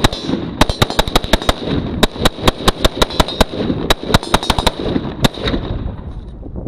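Rapid gunfire: a fast, uneven string of sharp shots, several a second, that stops about five seconds in.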